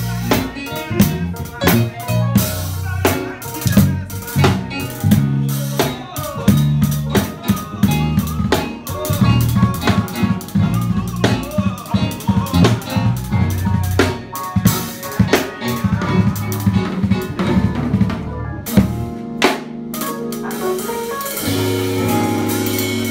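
A gospel rehearsal band playing: a drum kit with snare, bass drum and cymbal hits driving a busy groove over electric bass and keyboard. About nineteen seconds in, the drums stop and the bass and keyboard hold sustained notes.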